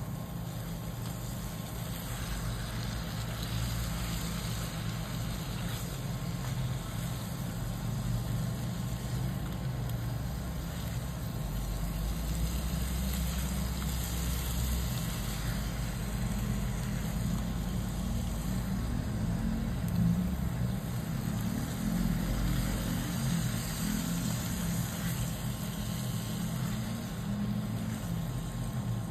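A steady low motor-like hum with a faint hiss above it, swelling a little in the middle.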